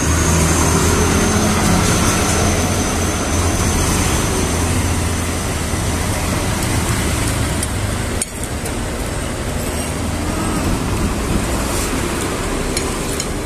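Steady road traffic noise with a low engine rumble, easing a little after about eight seconds.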